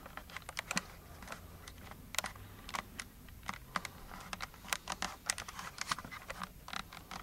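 Irregular light clicks and taps, a few a second, from handling the video camera while it zooms in.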